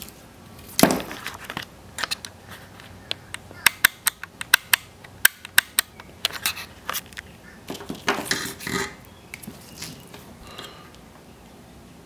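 Plastic clicks and taps from a wiring-harness plug and a mass airflow sensor's plastic housing being handled: a louder knock about a second in, then a quick run of sharp clicks and another cluster a few seconds later.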